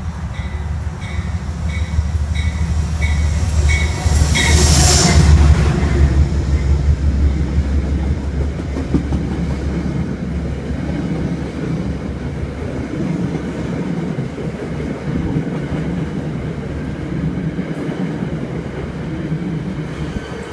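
Metro-North commuter train running past along the platform: a steady rumble with clickety-clack of the wheels. For the first few seconds a ringing tone repeats about twice a second, and about five seconds in a loud rush comes as the front of the train passes.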